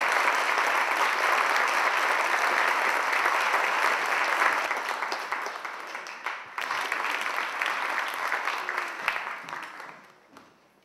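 Audience applauding, the clapping thinning out about six seconds in and dying away near the end.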